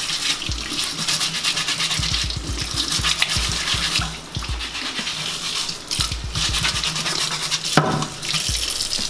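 Kitchen faucet running into a sink while lemons are scrubbed clean under the stream.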